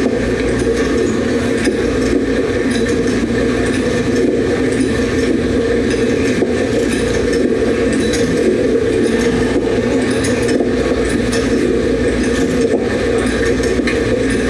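A police officer walking, picked up by his chest-worn body camera: a steady, loud rustling noise of movement against the microphone, dotted with light clicks and clinks of equipment.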